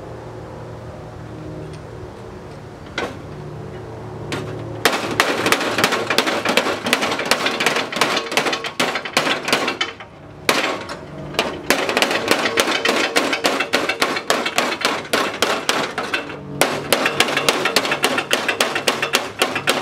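A hand hammer rapidly striking sheet steel on an old car's floor-pan patch, about five even blows a second, starting about five seconds in and pausing briefly twice. Before the hammering there is a low steady hum and a couple of single knocks.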